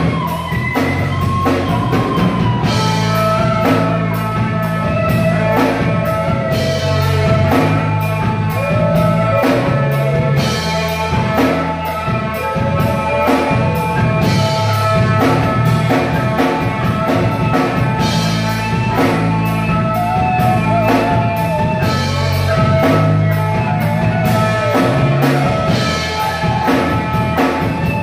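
Live rock band playing: a drum kit keeps a steady beat under amplified electric guitars, with a guitar line bending in pitch.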